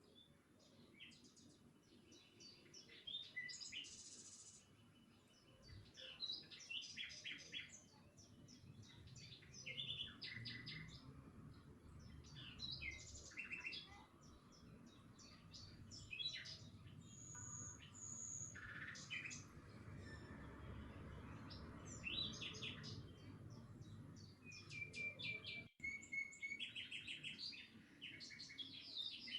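Faint birdsong: several birds chirping and twittering in quick runs of short high notes, with a few brief held whistles, over a low background rumble.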